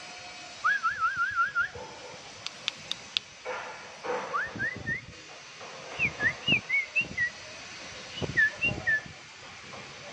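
Bulbul whistling clear, liquid notes: a wavering trill about half a second in, a few rising notes around four seconds, then a run of short falling notes. Soft low thumps come in among the later notes.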